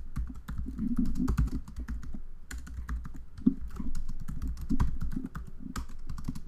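Computer keyboard typing: a quick, irregular run of key clicks as a line of text is typed.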